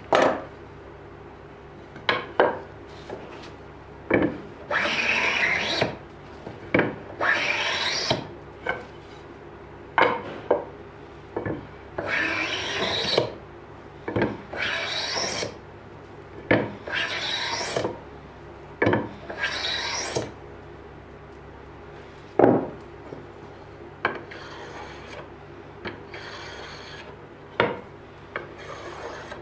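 Rasping, rubbing strokes of a small wooden piece being worked by hand on the workbench, each about a second long, growing lighter and shorter near the end. Between them come sharp wooden knocks as pieces and tools are set down on the bench.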